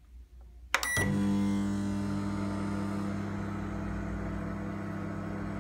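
Amica AMM25BI built-in microwave starting up: a sharp click with a short beep about three-quarters of a second in, then a steady electrical hum of the running oven as it begins a heating cycle set to 80% power.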